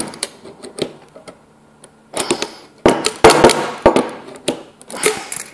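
Metal clicks, knocks and short rattles from a hand-held, home-made giant automatic centre punch being pressed down, tapped and moved about on a wooden bench while its firing mechanism fails to release. The densest, loudest clatter comes about halfway through.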